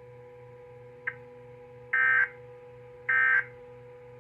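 Two short, loud bursts of warbling EAS digital data tones about a second apart: the SAME end-of-message code that closes the weather alert. They sound over a faint steady hum, with a small click about a second in.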